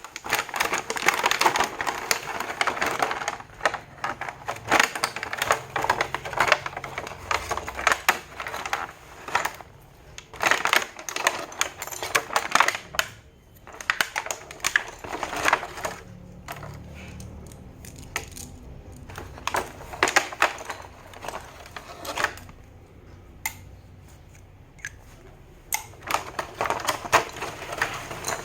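A makeup kit being unboxed: plastic packaging and cosmetic cases handled, with many quick clicks, taps and crinkles coming in bursts separated by quieter stretches.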